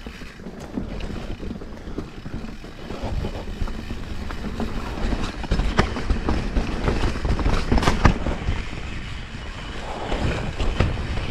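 Vitus Mythique mountain bike rolling down a dirt trail at speed: wind buffeting the microphone and tyres rumbling over the ground. Sharp knocks and rattles from the bike come over rough ground, loudest about six and eight seconds in.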